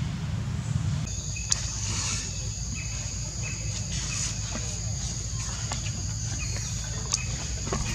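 Steady high-pitched insect chorus, two unbroken shrill tones that come in about a second in, over a low rumble, with a few sharp clicks.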